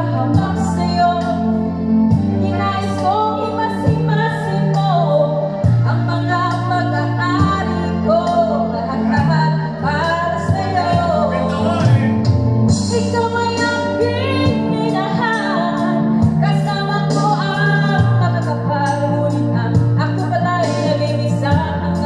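A woman singing into a microphone over a karaoke backing track, played loud through a speaker.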